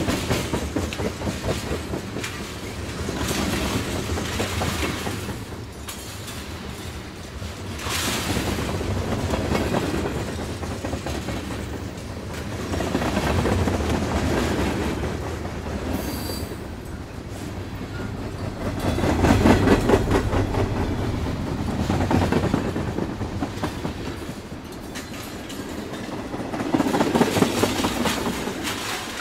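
Train running on rails: a rumble with wheel clatter that swells and fades in waves every five to six seconds.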